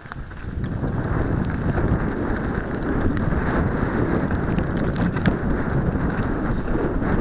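Wind buffeting the microphone of a camera carried on a mountain bike riding downhill on a dirt trail. The wind noise builds over the first second as the bike picks up speed, then runs steadily, with scattered small clicks and rattles from the bike on the rough ground.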